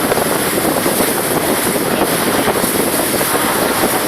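Steady rush of wind on the microphone and water noise from a water taxi under way.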